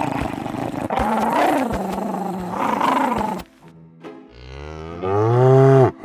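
Overlapping animal calls over background music for the first three seconds or so, then a cow's long moo from about four seconds in that rises a little in pitch and cuts off abruptly near the end.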